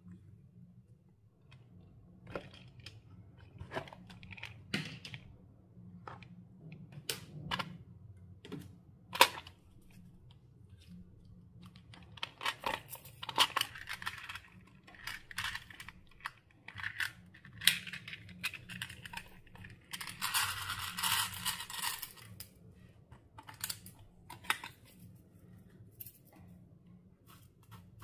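Clear slime handled by hand, giving scattered sticky clicks and pops, with two denser stretches of crackling, one near the middle and one about three quarters of the way through.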